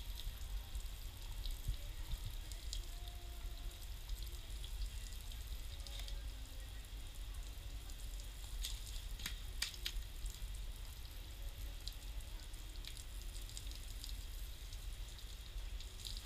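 Water pouring and spattering onto a wet concrete floor, a steady hissing patter, with a few sharp slaps about halfway through.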